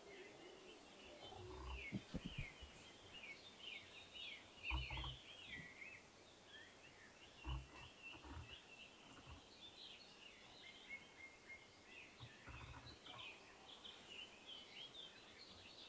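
Faint, busy chatter of many small birds, short high chirps overlapping one another, with a few low dull thumps.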